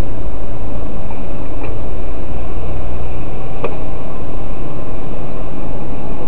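Steady vehicle engine and road rumble, with a single sharp click about three and a half seconds in.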